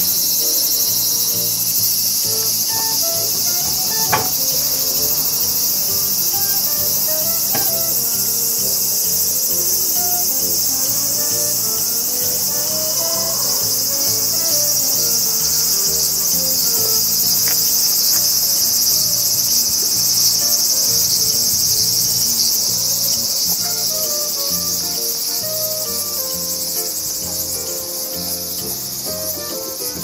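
Cicada chorus: a dense, steady, high-pitched buzzing that carries on without a break and eases a little near the end.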